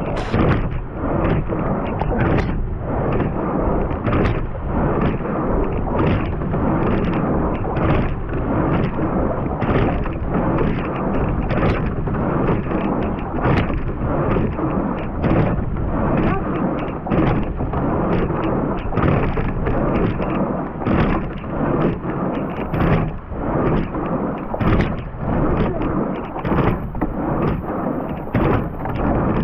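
Wind buffeting the microphone and water rushing past a racing quad scull under way, with repeated knocks from the oars working in their oarlocks as the crew rows at about 32 strokes a minute.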